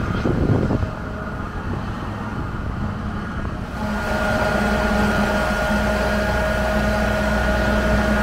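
Wind buffeting the microphone for about the first second, then, from about four seconds in, a steady engine drone with a constant whining tone over it.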